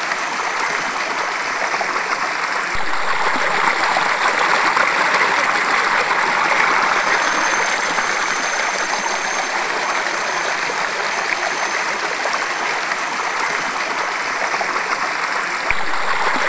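Waterfall pouring into a plunge pool: a steady rush of falling water and spray splashing onto the pool's surface. The sound shifts abruptly about three seconds in and again near the end, where it gets a little louder.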